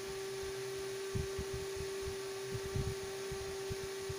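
A steady electrical hum with a scatter of soft, irregular low thumps, clustered about a second in and near three seconds in. The thumps come from handling while headphone wires are held and soldered.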